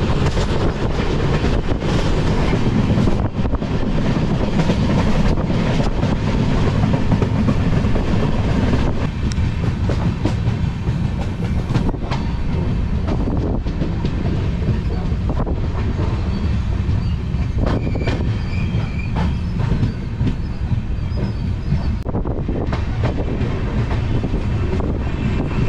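Express passenger train running, a steady rumble with the wheels clattering on the rails; the noise eases a little about nine seconds in.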